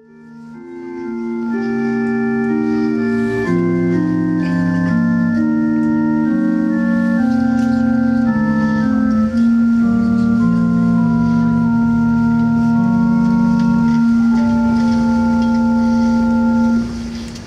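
Organ playing slow, sustained chords. It fades in over the first couple of seconds, settles into a long held chord about halfway through, and stops shortly before the end.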